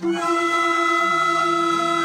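Andean carnival music: long, steady held notes sounding together. A higher note is sustained throughout, and a lower note comes in about a second in.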